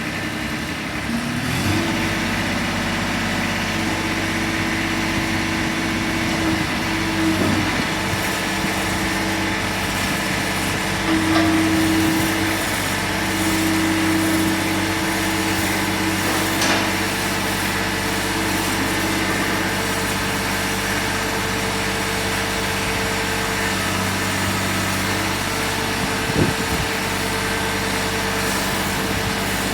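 Kubota B21 backhoe loader's three-cylinder diesel engine running steadily. Its speed steps up about a second and a half in and then holds, with a few short knocks along the way.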